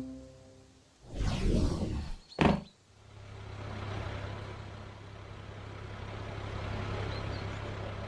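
Cartoon vehicle sound effects: a brief mechanical rustle and a sharp clunk about two and a half seconds in, then a truck engine running steadily with a low hum.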